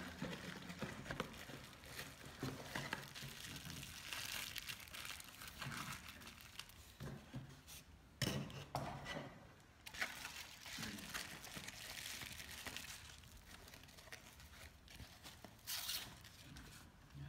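Crinkling and rustling of packaging as a camera body is unwrapped. Cardboard box flaps are opened, then bubble wrap and a protective pouch are handled and pulled off, with a couple of sharper crackles about halfway through and near the end.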